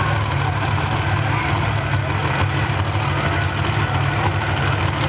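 Monster truck engines idling with a steady deep rumble.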